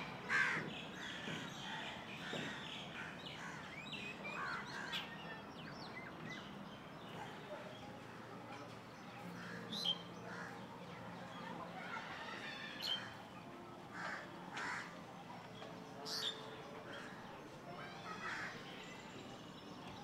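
Several birds calling in the tree, short calls and chirps scattered throughout, the loudest about half a second in.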